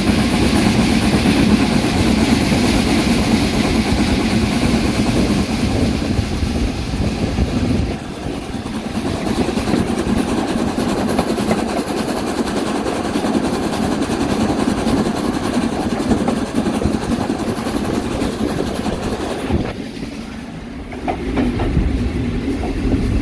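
Three-cylinder Peppercorn A1 Pacific steam locomotive 60163 Tornado running under steam on a climb, heard from its footplate: a loud, steady rush of exhaust, motion and wheels on rail. The noise dips briefly about eight seconds in and again about twenty seconds in.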